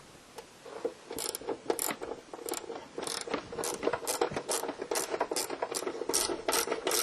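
Ratchet wrench clicking in repeated strokes, about two a second, as fasteners on a BMW E46's air filter housing are undone.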